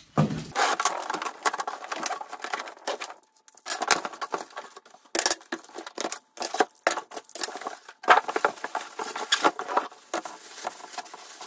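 Cardboard box, foam packing and a plastic bag rustling, scraping and crinkling in an irregular run of handling noise as a mitre saw is unpacked.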